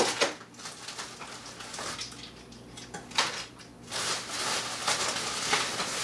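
Bubble wrap and plastic packaging rustling and crinkling as hands dig through a cardboard box. There are a few short crackles, then a longer stretch of rustling from about four seconds in.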